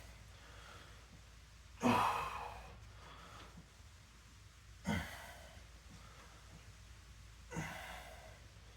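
A man breathing out heavily three times, a few seconds apart; each breath starts sharply and trails off, and the first is the loudest. These are tired, winded exhales after exercise.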